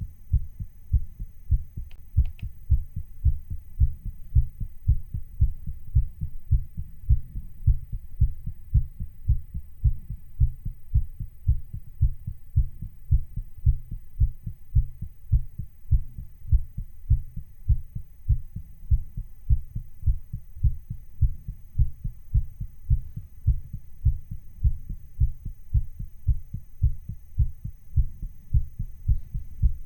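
A person's heartbeat, recorded and sped up a little to a racing pace: a fast, even rhythm of low thumps.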